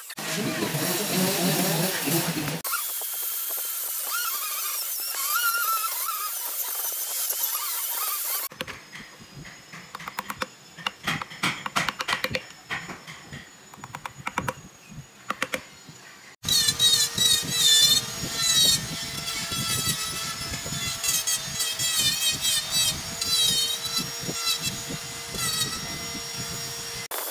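Handheld electric rotary carving tool grinding into wood with a high squealing whine. About eight seconds in it gives way to quieter quick scraping clicks of a hand gouge paring the wood, and about sixteen seconds in the rotary tool's squealing whine returns.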